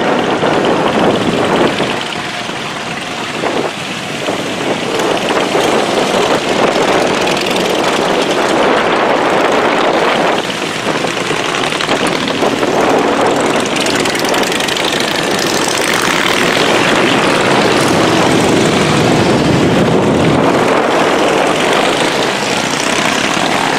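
Many motorcycle engines running together: a loud, steady, dense engine noise.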